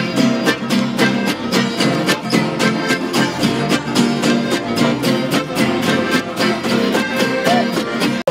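Live band of strummed acoustic guitars and button accordions playing a lively dance tune together, the guitars keeping a steady, evenly spaced strummed beat under the accordions' chords and melody.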